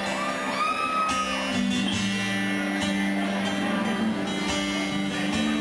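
Live band playing amplified music with strummed acoustic guitar, electric guitars, bass and drums. A lead note slides up and is held for about a second near the start.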